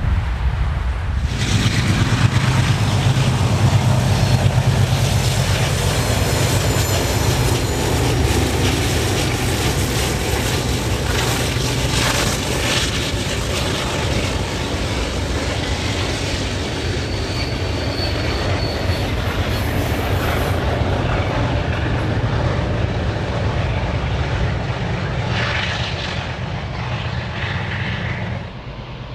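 Two New South Wales 44 class ALCO diesel-electric locomotives passing under load, their engines running with a steady low drone over the noise of wheels on the rails. The sound starts abruptly a little over a second in and falls away shortly before the end.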